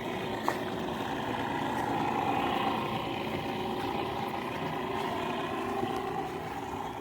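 A small engine running steadily, swelling slightly a couple of seconds in and easing off, with a single small click about half a second in.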